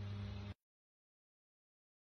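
Near silence: a faint steady low hum cuts off about half a second in, leaving dead silence.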